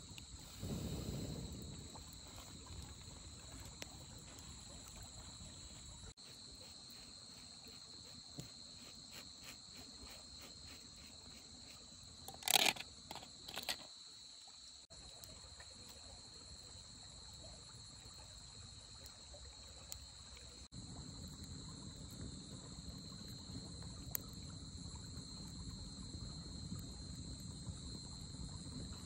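Insects trilling: a steady, high, continuous chirring. A short, louder sound cuts in about twelve and a half seconds in and comes again about a second later, and a low rushing noise rises in the last third.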